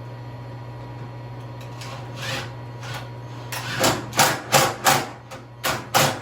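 Steady low hum of a space heater, then a quick run of about six loud knocks, like tapping on metal, in the last two and a half seconds after a couple of fainter ones.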